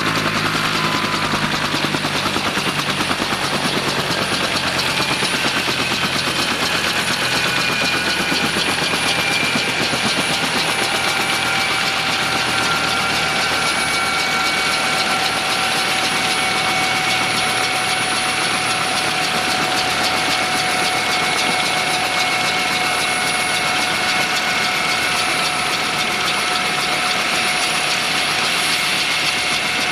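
Bell 204B helicopter winding down on the ground after shutdown: a steady turbine whine of several tones that drift slowly lower, over a constant rush. The low beat of the main rotor fades out in the first few seconds.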